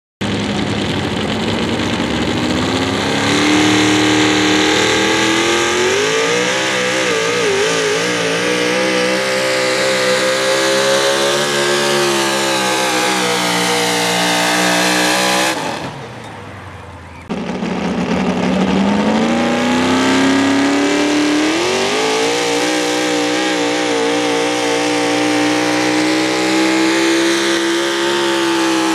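Supercharged engines of Pro Modified 4WD pulling trucks running at high revs under full load while dragging a pulling sled. The first engine's pitch climbs, wavers mid-pull and falls away about halfway through as it comes off the throttle; then another truck's engine comes in abruptly, climbs and holds high.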